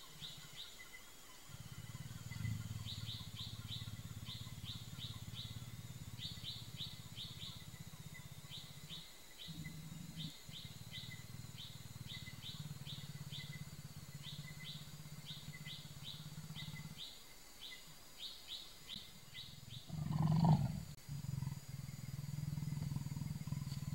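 A leopard's low, steady growl, breaking off briefly a few times, with a louder, harsher growl about twenty seconds in. Insects chirp in quick groups of high clicks over it.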